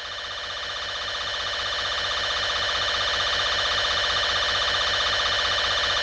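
Steady electronic emergency alert tone, a harsh buzzing alarm with a fast flutter, swelling in loudness over the first couple of seconds and then holding steady.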